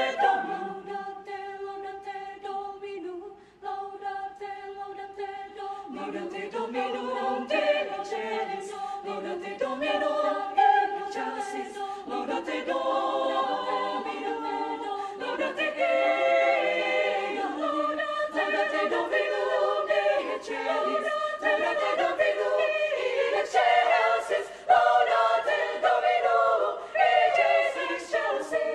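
Women's choir singing a cappella in several vocal parts.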